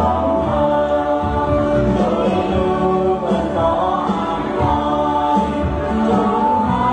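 Dance music: a song with voices singing over instrumental backing.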